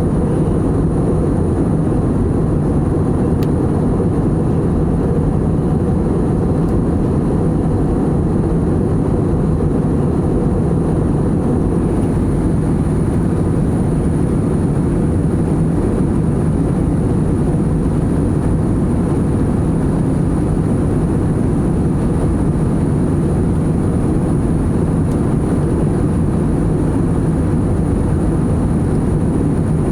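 Airliner cabin noise in flight: a steady low rush of engines and airflow, with a thin, steady high whine over it.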